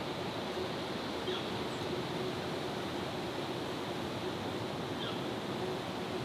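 Steady outdoor background noise with a faint low hum running through it, and two faint, short, high chirps, one about a second in and one about five seconds in.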